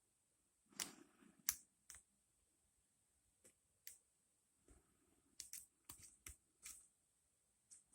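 Faint, irregular small metallic clicks of a hook pick and tension wrench working the pins of an ASSA Rune 2 padlock during single-pin picking, with a run of quicker clicks in the second half.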